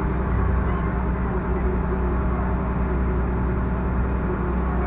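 Engine of a kempang, a small wooden passenger boat, running steadily with an even low drone.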